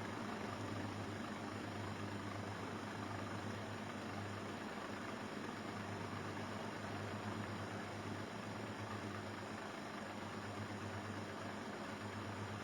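Steady low electrical hum with a constant hiss.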